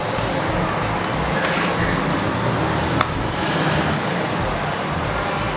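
Steady background traffic noise with a low rumble, and a single sharp click about three seconds in.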